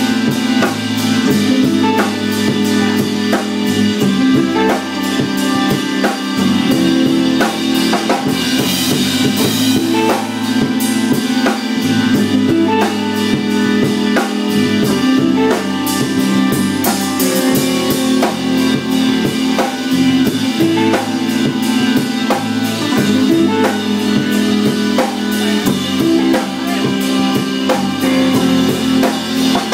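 Background music with a steady drum-kit beat over sustained pitched tones.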